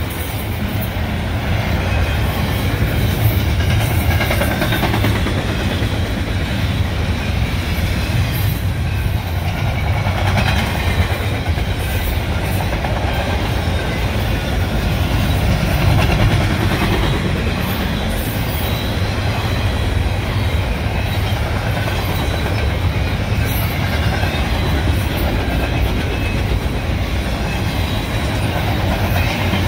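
Double-stack intermodal container cars rolling past on the rails: a steady, loud rumble of steel wheels on track with scattered clicks and clatter.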